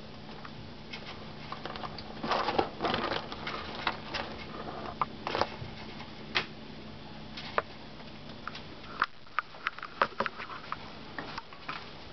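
Guinea pig moving about in its cage bedding: scattered rustling scuffles, then a run of short sharp clicks about two-thirds of the way through.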